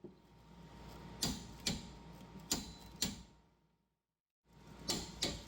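Torque wrench clicking as the rear caliper bracket bolts are tightened to 58 foot-pounds: sharp metallic clicks in pairs about half a second apart, four in the first few seconds and two more near the end.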